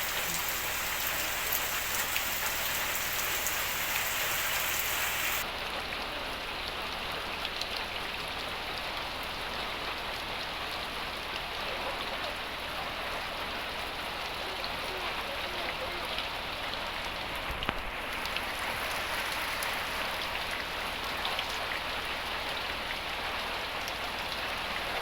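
Steady rain falling, a dense even hiss of drops hitting surfaces. About five seconds in, the hiss abruptly loses its highest, sharpest part and carries on a little softer.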